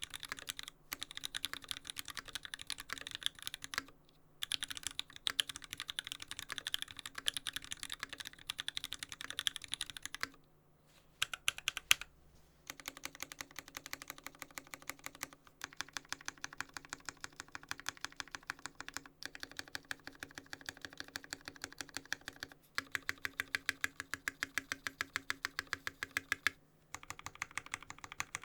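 Steady, fast typing on an LZ Stan custom mechanical keyboard with lubed Gateron Yellow linear switches, an aluminium plate and GMK keycaps. There are a few short pauses and a longer break about ten seconds in, with one louder keystroke in that break.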